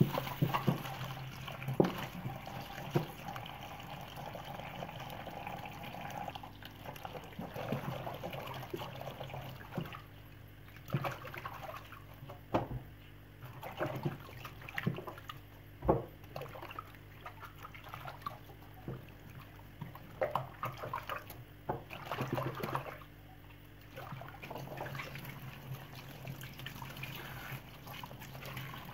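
Tap water running into a stainless steel sink while hands swish and rinse rape greens in it, with irregular splashes and sloshing.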